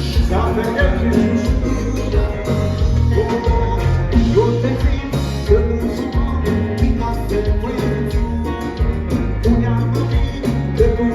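Kompa band playing live, a steady bass and drum groove under melodic lines.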